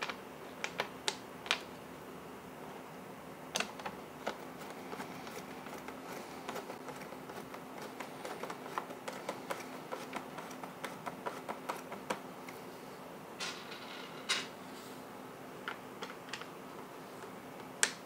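Hand screwdriver driving screws into a Ryobi leaf blower's plastic housing, with the plastic parts being handled: scattered sharp clicks and taps, and a run of quick small ticks in the middle.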